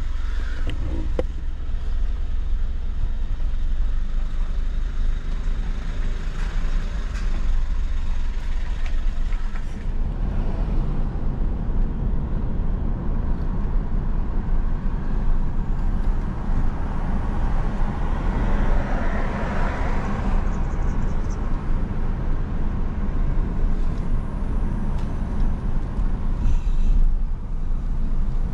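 Steady road noise inside a moving car: a continuous low rumble of engine and tyres, with a brief swell of hiss about two-thirds of the way through.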